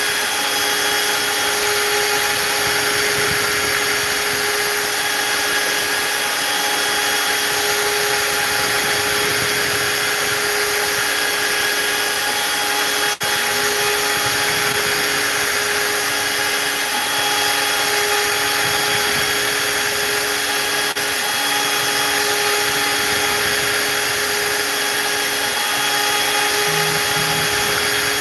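CNC router spindle running steadily with a high whine while its V-bit carves into olive wood and epoxy resin, with the hiss of the cut under it.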